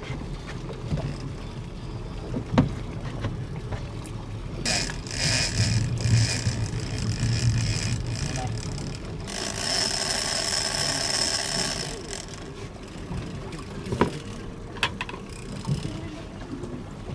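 Fishing boat at sea: a steady low rumble of engine and water, with two stretches of rushing hiss and a few sharp knocks on the boat.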